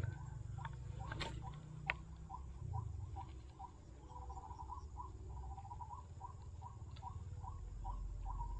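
A small night animal calling: a steady run of short chirps, about three a second, over a low rumble. A single sharp click sounds about two seconds in.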